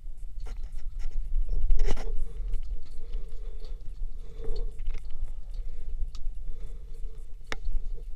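A hiker scrambling over rocks: scrapes, crunches and knocks of shoes and hands on rock and dry leaf litter, with a sharp knock about two seconds in and another near the end. Under it runs a low rumble of the body-worn camera being jostled.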